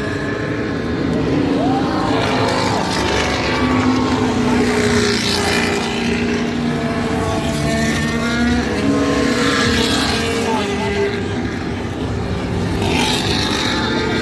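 Formula 1 cars' turbocharged V6 engines passing on the track, the pitch rising and falling as cars go by about three times, over a steady background of engine noise.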